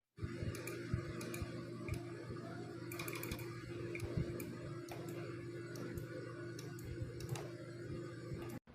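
Omron D2FC-F-7N micro switches clicking, in irregular single presses and quick runs of clicks, over a steady low hum.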